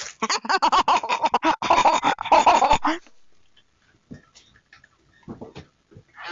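Dog barking in a fast, dense run for about three seconds, then a few faint scattered sounds.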